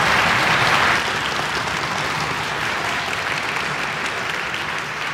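Audience applauding at the end of a talk. It is loudest in the first second, then settles a little lower and slowly dies down.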